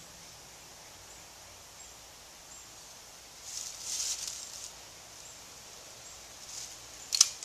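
Quiet outdoor ambience with a faint high insect drone. A brief rustle comes a few seconds in, then a sharp double click of handling noise near the end.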